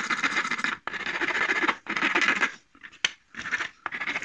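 Flat hand file rasping over a plastic-welded tab on a plastic car grille, trimming back the welded-on scrap plastic: about five strokes, each a little under a second, with short pauses between and a light click about three seconds in.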